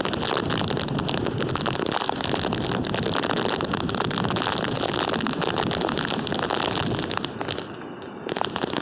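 Hurricane wind and driving rain: a dense, steady rush with crackling spatter and wind buffeting the microphone, easing briefly near the end.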